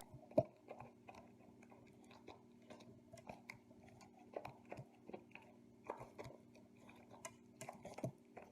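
Faint, irregular soft clicks and ticks over a low, steady hum.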